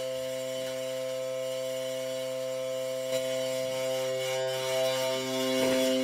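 A single low note held as a steady drone, with its overtones ringing evenly. There is a faint click about three seconds in, and the note grows louder and brighter near the end.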